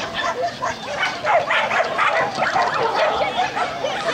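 A dog barking and yapping rapidly and repeatedly, in quick excited bursts with no pause, as during an agility run.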